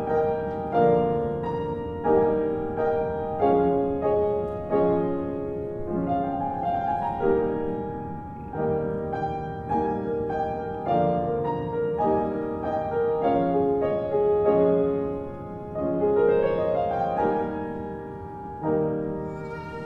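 Piano music: a steady run of struck notes and chords, each ringing and fading before the next.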